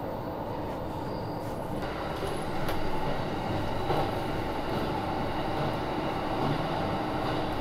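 Interior running noise of a JR E235 series electric train car in motion: a steady rumble from wheels and track. It gets a little louder about two seconds in.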